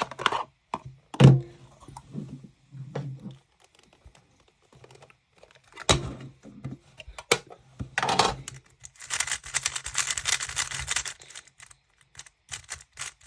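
Speedcube packaging being handled and opened: scattered knocks and clicks, the loudest a thump about a second in, then about two seconds of dense, rapid clicking and crinkling near the end.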